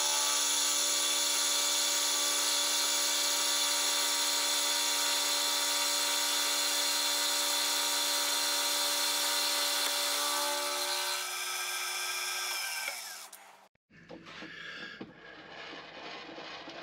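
Milling machine running a high-speed steel end mill dry through a mild steel block, a steady whine made of several tones. About eleven seconds in the sound thins and its pitch falls away, then it stops abruptly. A quieter, rougher mechanical sound follows.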